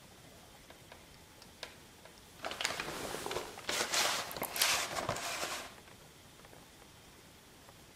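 A VHS tape case being handled and flipped open: a few faint ticks, then about three seconds of scraping and rustling with small clicks, starting about two and a half seconds in.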